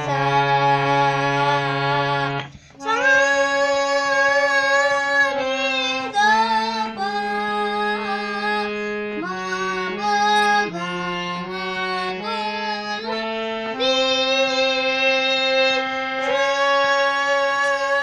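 A boy sings a slow, unmetered aalap in Raag Bhairav while playing a harmonium. The harmonium's reeds sustain long notes that step from pitch to pitch, with a short pause about two and a half seconds in.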